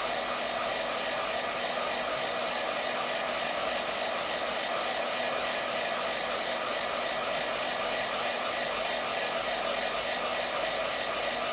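iTeraCare handheld wand blowing warm air steadily: an even hair-dryer-like rush of air from its fan, with a steady low hum underneath.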